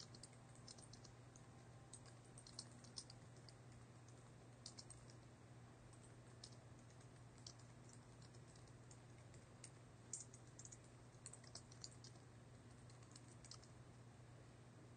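Faint typing on a computer keyboard, keys clicking in short irregular runs, over a steady low hum.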